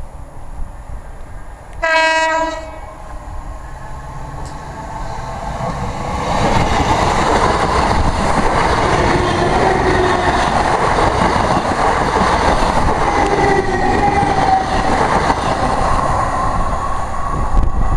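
Class 321 electric multiple unit sounds a short single horn blast about two seconds in, a warning for the foot crossing. From about six seconds on, a pair of coupled units passes close by at speed with loud wheel and rail noise.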